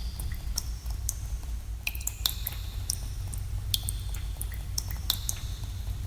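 Water drops falling irregularly into pools in a cave, each a sharp plink with a brief ringing tone, about two or three a second, over a steady low rumble.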